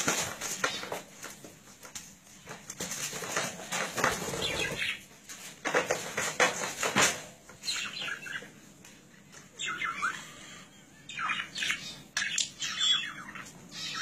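A budgerigar chirping and squawking in short bunched calls, mostly in the second half, with scuffling and fluttering noises in the first half.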